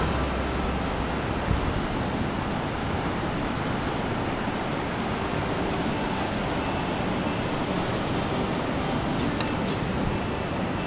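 Steady rush of surf washing up the beach, mixed with wind.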